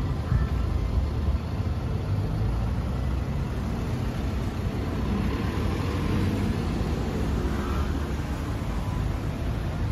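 Kawasaki Ninja 650's 649 cc parallel-twin engine idling steadily.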